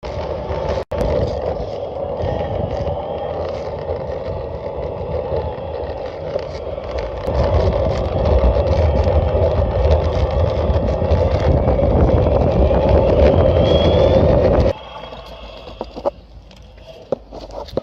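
Boosted electric skateboard running, with a steady drone from its rear drive truck over the rumble of the wheels; the sound grows louder partway through and cuts off suddenly near the end, leaving a few light clicks. The owner hears the drone as an abnormal noise from the back truck that does not affect performance.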